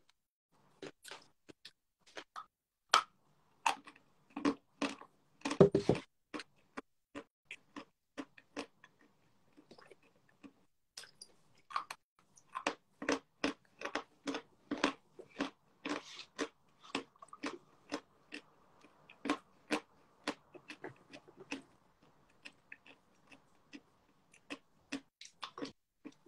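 A person chewing crunchy food close to the microphone: irregular crunches and mouth clicks, loudest around six seconds in.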